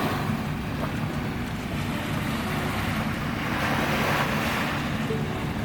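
A boat underway: a steady low engine hum under rushing water and wind buffeting the microphone. The water noise swells about halfway through.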